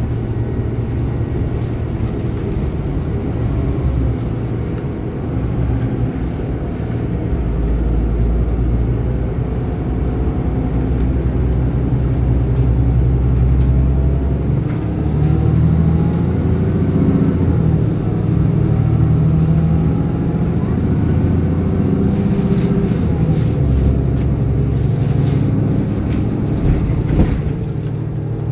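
City bus running and driving, heard from inside the passenger cabin: a steady low engine and drivetrain hum whose pitch rises and falls with speed. A rougher, noisier stretch with crackling comes near the end.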